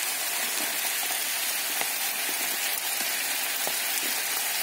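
Steady crackling sizzle of chopped onions frying in oil in a frying pan, with sliced champignon mushrooms just tipped in on top.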